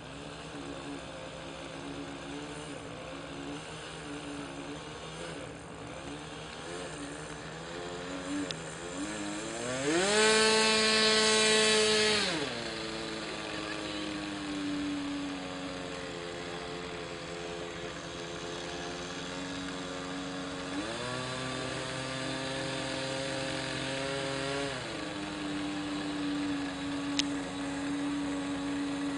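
RC model airplane's motor idling with a slightly wavering pitch, then revved up twice. The first run-up, about ten seconds in, is brief and loud. The second, a little past the middle, is smaller and lasts about four seconds before it drops back to a steady idle.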